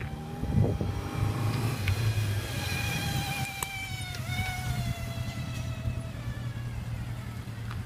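High-pitched squeal from a car's front wheel, a steady whine with several overtones that wavers slightly, dips briefly about four seconds in and fades near the end, over the low hum of the car.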